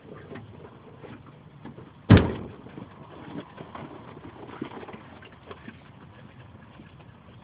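A single loud, sudden thump about two seconds in that dies away quickly, with a few faint clicks and knocks scattered around it.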